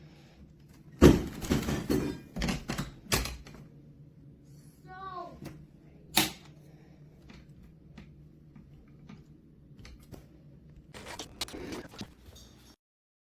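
A run of hard knocks and rattling clatter, then a short squeak that bends down in pitch about five seconds in and a single sharp click. A second burst of clatter comes near the end.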